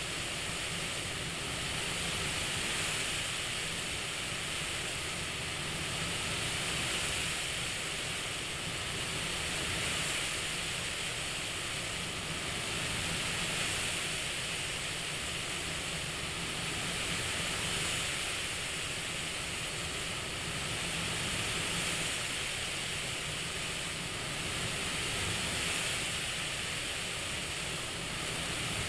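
CPAP machine airflow hiss, steady, swelling and easing in a slow breathing cycle about every three and a half seconds.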